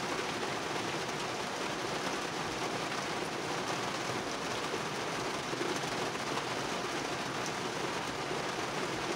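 Heavy rain pouring steadily on a parked truck, heard from inside the cab.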